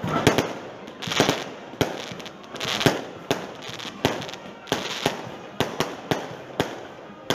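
Aerial firework shells bursting in quick succession: sharp bangs about two a second, with crackle and hiss between them.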